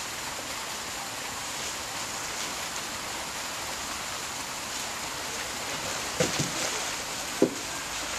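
A long wooden branch knocks dully a few times on a concrete floor about six seconds in, and once more, more sharply, near the end, as an African elephant handles it. A steady rushing hiss runs underneath.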